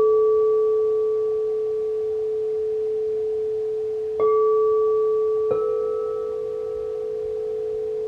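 Frosted quartz crystal singing bowls ringing with a long, steady tone that slowly fades, then struck with a mallet about four seconds in and again about a second later, each strike setting off a new sustained ring.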